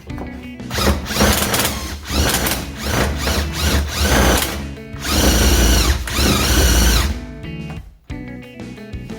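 Power drill running in several bursts, the longest near the end with its pitch rising and falling, over background music.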